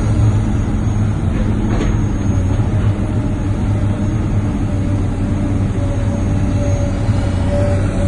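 Heavy diesel engine running steadily with a deep, even hum; a faint higher whine comes in during the second half.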